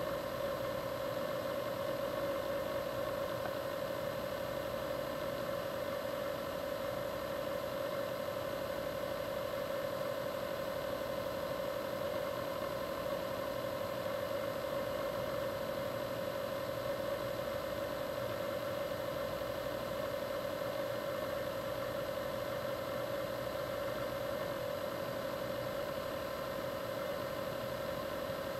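A steady mechanical hum.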